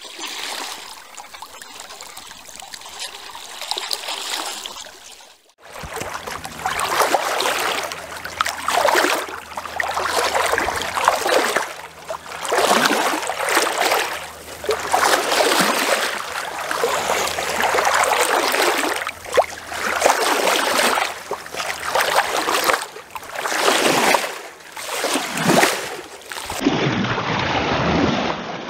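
Water rushing and splashing along a moving boat's hull in repeated surges every second or two, over a faint steady low hum. For the first five seconds there is only a softer water wash, before a sudden change to the louder splashing.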